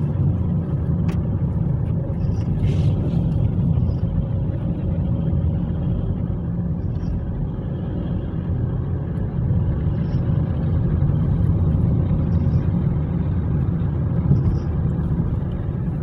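Steady low rumble of a car driving along a road, heard inside the cabin: engine and tyre noise, with a single sharp click about a second in.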